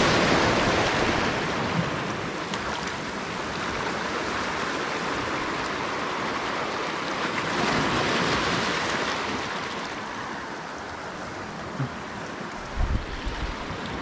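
Small sea waves breaking and washing over the rocks of a stony shore. The surge is loudest at the start and swells again about eight seconds in. A few soft knocks come near the end.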